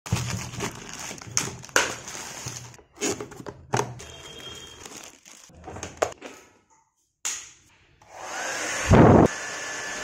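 Plastic courier mailer being slit with a kitchen knife and packaging rustled and handled, in a run of sharp cuts and crinkles. About eight seconds in, a Havells HD3225 1800 W hair dryer starts blowing with a steady rush, with a short loud gust near the end.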